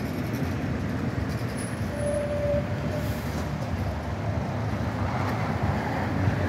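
Zagreb street tram running along its rails, a steady low rumble of wheels and motors mixed with street traffic, with a short steady whine about two seconds in.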